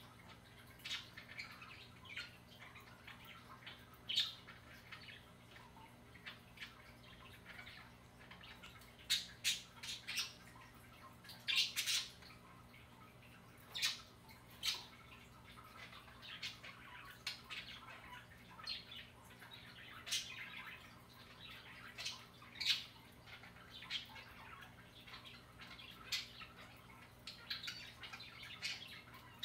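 House sparrows chirping: short, sharp chirps at irregular intervals throughout, some coming in quick clusters.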